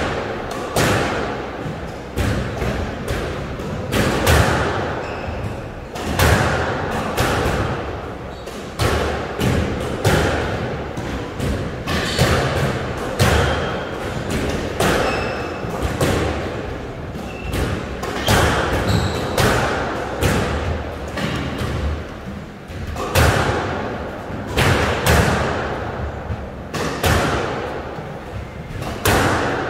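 Squash rally: the ball cracking off rackets and slamming into the court walls, a sharp hit about every second, each ringing on in the hall. Short squeaks of court shoes come between the hits.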